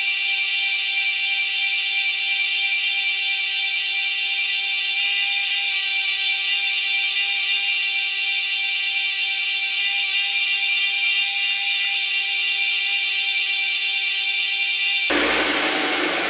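Bench grinder running with a steel ball-peen hammer head held against its abrasive wheel: a steady, high grinding hiss over a steady motor hum. About fifteen seconds in, as the hammer comes off the wheel, the sound changes suddenly and the level starts to fall.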